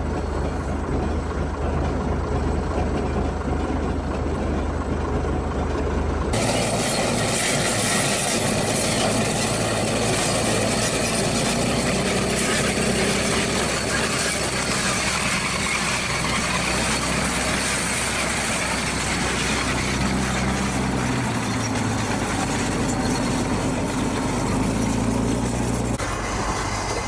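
Tracked armoured vehicles running, with engine noise and the clatter of the tracks. The sound changes abruptly about six seconds in and again near the end.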